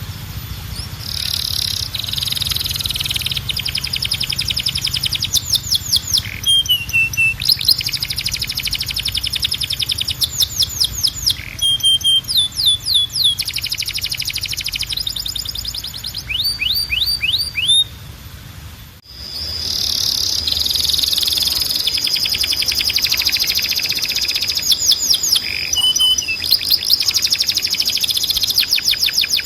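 Timbrado canary singing: long rolling trills of rapid repeated notes with occasional sweeping glides. It breaks off briefly about two-thirds of the way through, then resumes.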